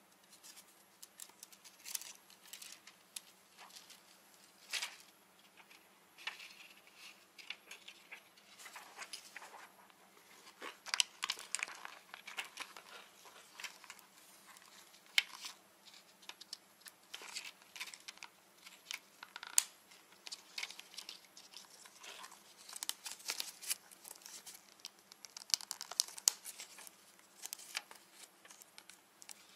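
Thin plastic film crinkling and crackling in irregular bursts, with scattered small clicks, as goggle tear-offs, a lens's protective film and the plastic lens and frame are handled.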